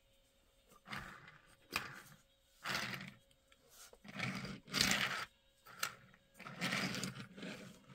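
Hot Wheels diecast off-road car rolled back and forth on a hard surface, its wheels rumbling in about six short passes, showing that it rolls freely.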